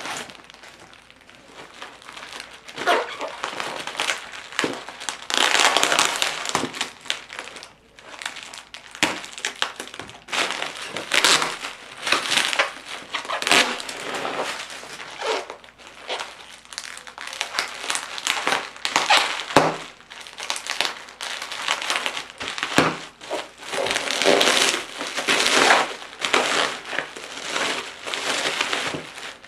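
Plastic bubble wrap being handled and unwrapped, rustling in irregular bursts.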